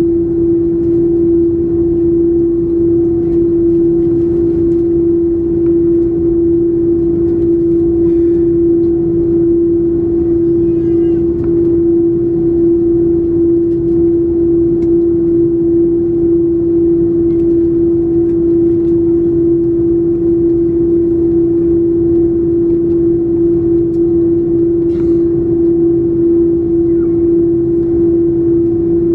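Cabin noise of an Airbus A330-300 taxiing on its GE CF6-80E1 engines at idle: a loud, steady drone with one strong held tone over a rumble.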